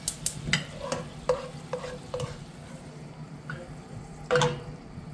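Slotted nylon spatula clicking and scraping against a nonstick sauté pan as steamed broccoli florets are scooped out, over the light bubbling of the water in the pan. A quick run of clicks comes in the first two seconds, and one louder knock comes about four seconds in.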